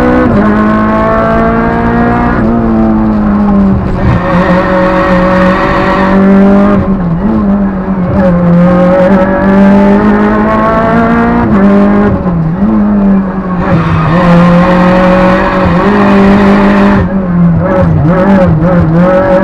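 Renault Clio Sport rally car's four-cylinder engine pulled hard, heard from inside the cabin. The revs climb steadily and drop at each gear change, several times, with brief lifts for corners.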